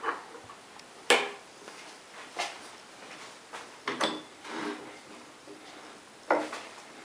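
About four sharp metal clunks with brief ringing, one of them followed by a short rattle, as metal parts are knocked and shifted about.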